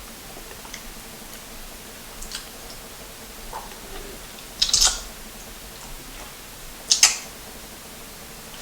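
Eating sounds close to the microphone: faint scattered mouth clicks while chewing, with two louder brief smacks about five and seven seconds in.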